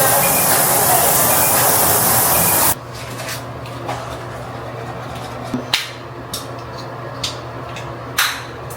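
Steady, loud rushing of running water that cuts off abruptly about three seconds in. Light clicks and knocks of small things being handled follow.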